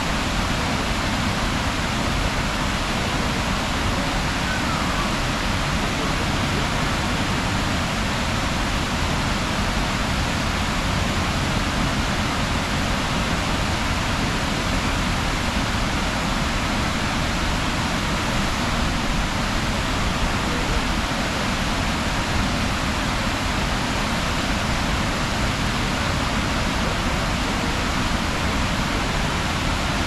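Waterfall pouring: a steady, even rush of water.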